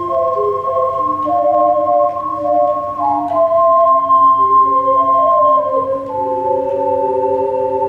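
Ocarina ensemble playing a slow melody in several-part harmony with pure, flute-like held notes, settling into a long sustained chord in the last couple of seconds.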